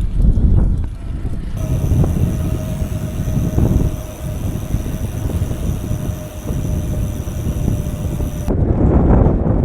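Strong wind buffeting the microphone, a loud continuous low rumble. About a second and a half in, a faint steady high whine and hiss start up and then cut off abruptly near the end.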